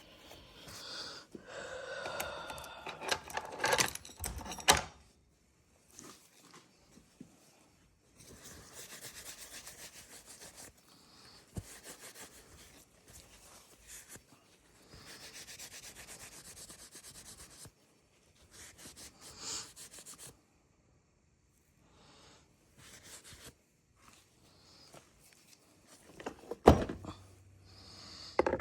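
Hand work on a chainsaw during repair: bouts of rubbing and scraping a few seconds long, separated by pauses, with a couple of sharp knocks near the end.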